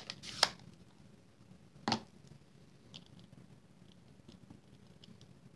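Small clicks and knocks from a clear acrylic stamp block and ink pad being handled on a craft mat while the sentiment stamp is re-inked. The loudest is a single sharper knock about two seconds in, followed by a few faint light ticks.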